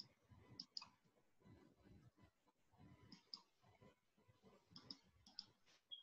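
Faint computer mouse clicks: several spaced-out clicks, some in quick pairs, over faint low room noise.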